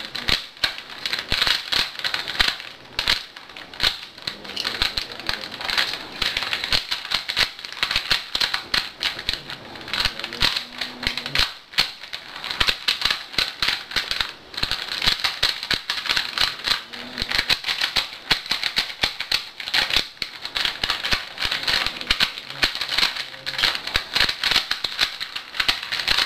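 Rubik's cube being turned fast during a timed solve: a dense stream of plastic clicks and clacks as the layers rotate, with a couple of short pauses.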